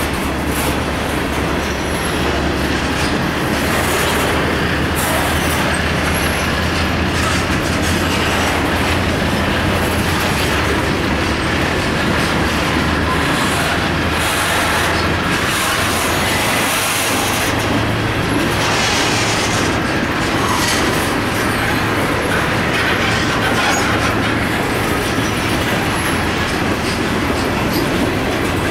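Covered hopper cars of a CSX grain train rolling steadily past, steel wheels running on the rails.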